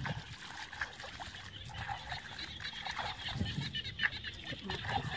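Small splashes and trickles of shallow muddy water as hands grope and scoop through it, with many short irregular clicks.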